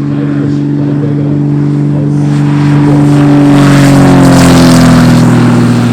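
A propeller aircraft's engine flying past at full power. It grows louder to a peak about four seconds in, while its pitch drops as it passes.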